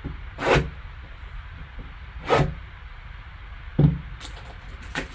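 Plastic shrink-wrap on a trading-card box being slit with a folding knife and pulled away: four short scraping rips, the third with a sharper knock.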